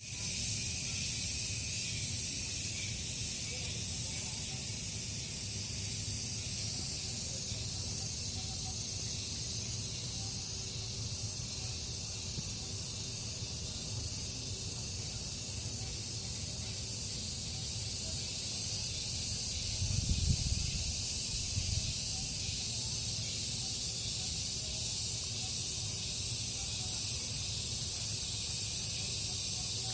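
Cicadas calling together: a shrill, high buzz that pulses roughly once a second. A brief low rumble comes about twenty seconds in.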